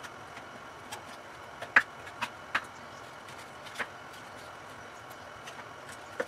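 Chef's knife chopping fried pork on a wooden cutting board: a handful of sharp, irregular knocks of the blade hitting the board, the loudest about two seconds in, then a quieter stretch.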